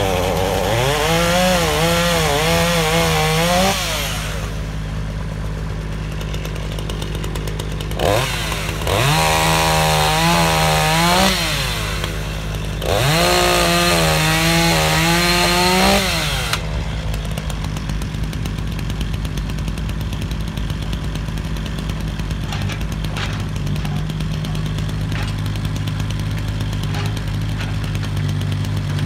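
A Makita chainsaw revving up and cutting through logs three times, each cut three to four seconds long with the engine note wavering as the chain works through the wood. A JCB mini digger's engine runs steadily underneath, and after the third cut, about halfway through, only that steady engine hum is left.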